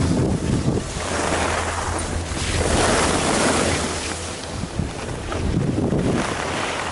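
Wind buffeting the microphone of a skier's moving camera, swelling and easing, over the hiss of skis sliding on snow.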